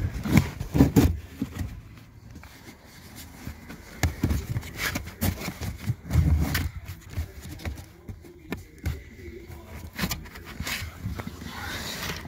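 A pleated paper cabin air filter being handled and pushed into its plastic housing under the dashboard: irregular rustling, scraping and light knocks, with a few louder thumps about a second in and again around six seconds in.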